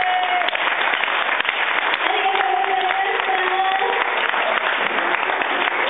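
Audience clapping steadily, with voices shouting and cheering over the clapping.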